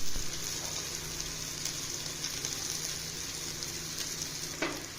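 Onions frying in hot peanut oil in a kadai: a steady sizzle, with a light knock near the end.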